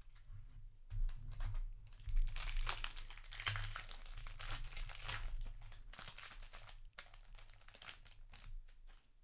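Foil Magic: The Gathering play booster wrapper crinkling and tearing as it is pulled open by hand, loudest in the middle. Lighter crinkles and clicks follow as the cards are drawn out of the pack.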